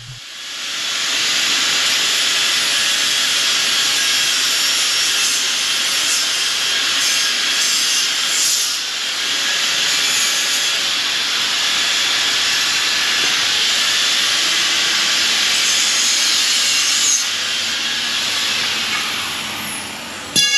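Electric angle grinder grinding the joint of a galvanized steel electrical-conduit hoop, dressing the metal ready for welding. The grinder comes up to speed about a second in, runs loud and steady, and winds down near the end.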